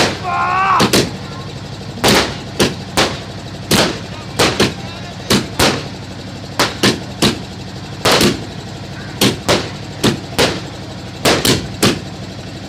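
Fireworks going off in rapid succession: sharp bangs in irregular clusters of two or three, about two a second, as aerial shells burst into sparks.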